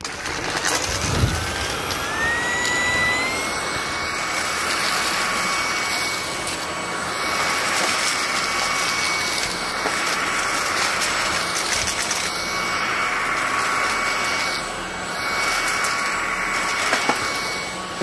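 Aerus Veridian Endeavor Plus cordless stick vacuum switching on: its motor whine rises over the first few seconds, then runs steady with a rushing hiss. Scattered clicks come from debris, screws among it, being sucked up off the carpet.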